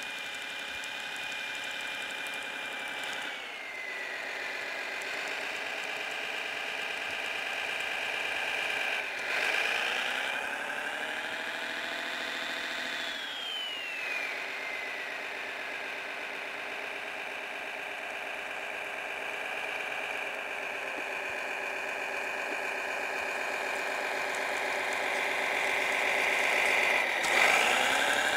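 Simulated snowcat engine sound from a Servonaut SMX sound module in an RC Kyosho Blizzard DF-300, running steadily through a small speaker with no deep bass; its revs dip and recover three times. Over it, a high whine rises, holds and slides back down twice.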